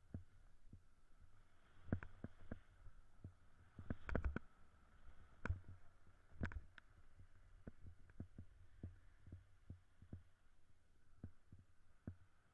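Muffled, irregular thumps and knocks of a snowboard riding over powder snow, carried through a body-mounted action camera, over a faint low rumble. The loudest knocks come in a cluster about four seconds in.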